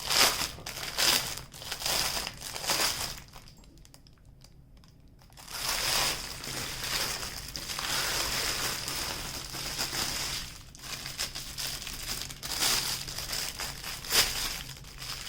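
Small plastic bags of diamond painting drills crinkling and rustling as they are handled and opened. The crackling stops for a couple of seconds a few seconds in, then carries on.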